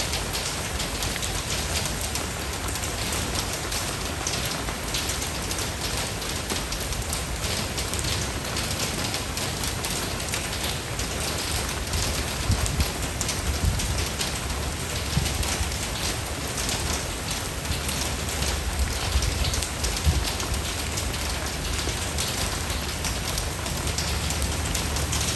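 Steady rain falling, thick with individual drop hits, over a steady low rumble.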